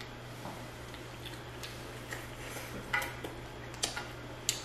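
Eating king crab legs: scattered small clicks and cracks of shell being handled and eaten, with three sharper clicks in the second half, over a steady low hum.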